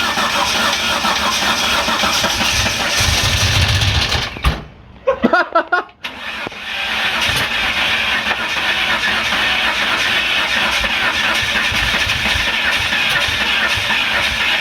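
A vehicle engine running with a dense, rattly exhaust note, louder and deeper for a moment about three seconds in, cutting out briefly about four and a half seconds in and then running steadily again.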